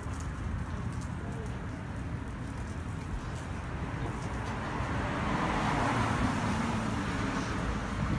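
Street traffic noise: a steady hum of road traffic that swells as a car passes about five to six seconds in.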